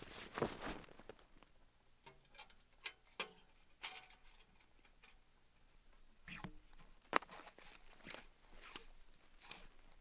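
A canvas tent's door zipper and fabric being handled, rustling through the first second. After that come scattered sharp clicks and crunches of movement in snow.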